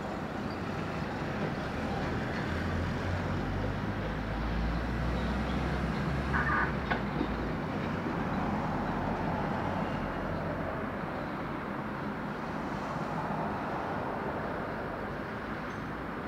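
Jet engine noise from a Boeing 777-300ER's two GE90 turbofans as the airliner rolls down the runway: a steady roar with a deep rumble that swells a few seconds in, then eases slightly.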